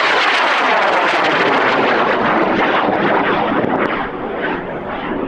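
High-power rocket motor roaring at liftoff: a loud rushing roar with crackle and a falling sweep in its tone, easing somewhat after about four seconds as it continues.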